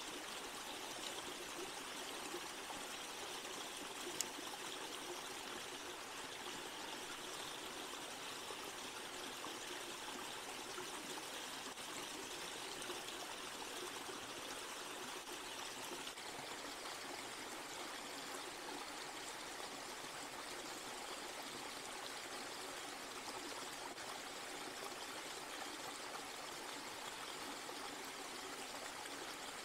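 Small woodland stream running steadily, water splashing down a little cascade over rocks. A single light click about four seconds in.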